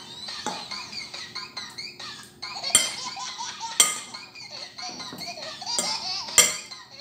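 A metal fork clinking against dishes as food is picked up from a salad bowl and plate, with three sharp clinks standing out: near the middle, about a second later, and near the end.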